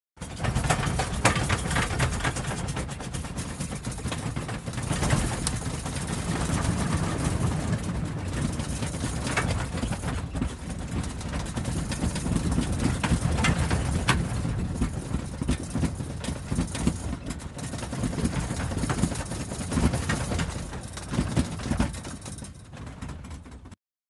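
Airliner cabin in turbulence: a steady low rumble of engines and airflow with scattered clicks and rattles, the level rising and falling unevenly. It fades somewhat and then cuts off suddenly near the end.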